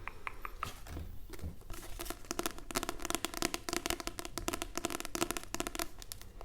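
Close-miked hands handling a paper booklet: crinkling, scratching and tapping, busiest through the middle.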